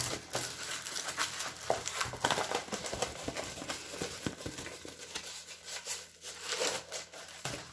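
Clear plastic sleeve and protective film of a diamond-painting canvas crinkling and rustling as the canvas is handled, with irregular crackles throughout.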